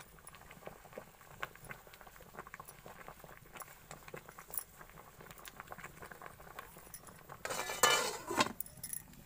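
Faint, continuous crackling from a steaming iron kadai on a wood fire. About seven and a half seconds in, a loud metallic clatter that rings briefly as the steel lid is set back on the kadai.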